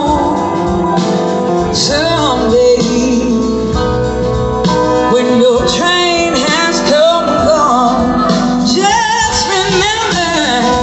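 A blues-rock band playing live, a full band with a lead melody that bends and wavers in pitch over it.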